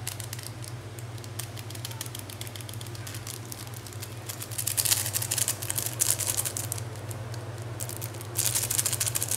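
Foil seasoning sachet from Maggi instant noodles shaken and tapped over a pan of hot water, giving rapid crinkling and ticking with two louder spells, one around the middle and one near the end. A steady low hum runs underneath.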